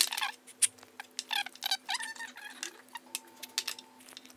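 Many short clinks and taps of small cups and glass carafes being handled on a table, with small splashes of coffee being poured, under a faint steady hum.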